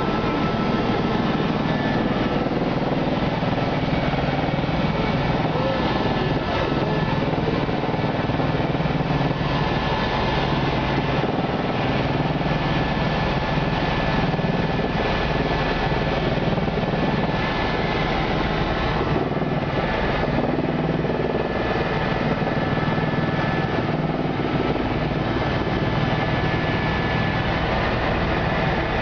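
Helicopter in flight heard from inside the cabin: a steady drone of engine and rotor.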